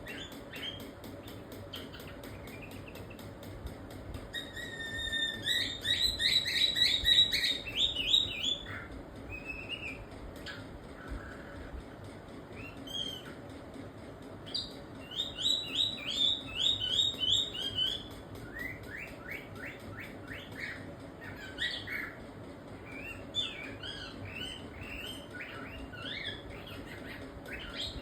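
Cockatiel chirping in rapid runs of short repeated notes, with two loud bursts of about three seconds each, followed by softer, more scattered chirps in the last third.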